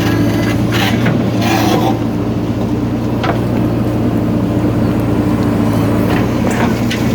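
JCB 3DX backhoe loader's diesel engine running steadily at working revs, with a few short bursts of clatter over it, about a second in, around three seconds, and near the end.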